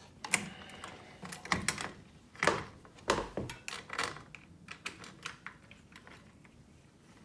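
Irregular clicks, taps and light knocks of hands working on a bicycle's front end while unhooking the dynamo cables, with a couple of duller thumps.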